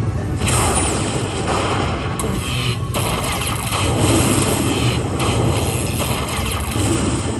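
Aristocrat Lightning Link slot machine's bonus-collect sound effect: a loud, dense electric zapping in several stretches broken by short dips as lightning strikes each coin and its value is added to the win meter.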